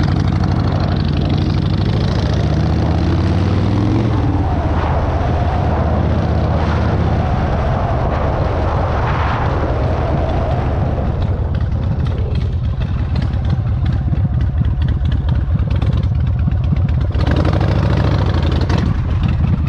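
Harley-Davidson Softtail V-twin engine running while the motorcycle is ridden, rising in pitch as it accelerates over the first few seconds, then holding steadier and a little quieter, and louder again near the end.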